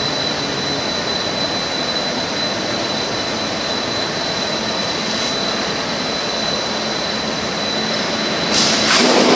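Stainless steel cut-to-length line running: a steady mechanical whir under a constant high whine, swelling louder for about a second near the end.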